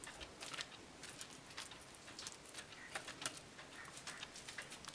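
Faint, irregular soft clicks and pats of fingers pressing and spreading a wet, coarse mung dal and coriander mixture flat in an oiled aluminium pan.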